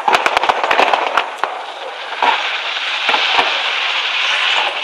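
Fireworks display going off in a rapid string of sharp cracks and bangs for about the first second and a half, then a steady dense hiss with only occasional cracks.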